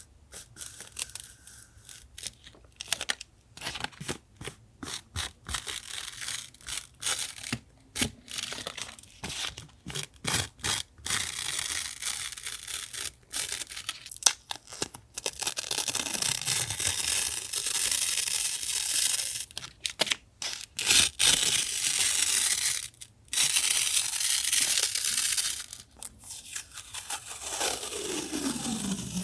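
Paper being torn and handled: a run of short rips and rustles, then longer, slower tears.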